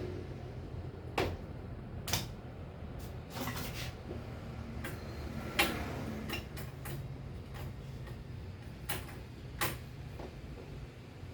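Irregular sharp clicks and knocks, about eight of them spread across some ten seconds, over a low steady rumble.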